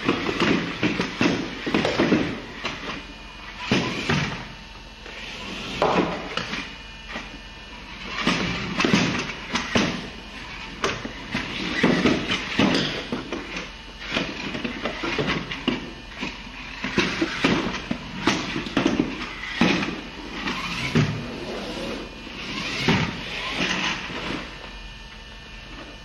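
Remote control car driving in short, irregular bursts of a second or so each, with sharp knocks between them.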